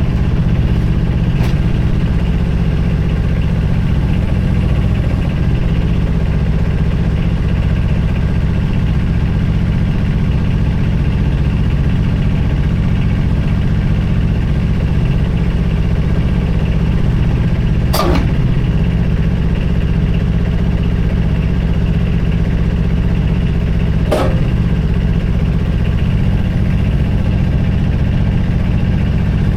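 An engine running steadily at a constant speed, with a few short sharp clicks over the top.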